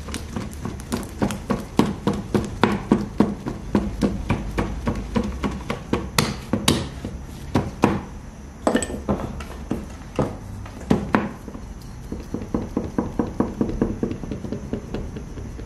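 Rapid run of dull thuds, about three to four a second, with a few sharper knocks in the middle: hands pressing and slapping a round of patir dough against a board as it is shaped.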